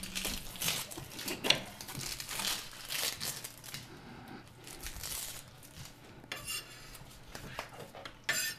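Kitchen knives chopping vegetables and slicing meat on cutting boards, giving irregular knocks and scrapes. A brief metallic clink comes about six seconds in.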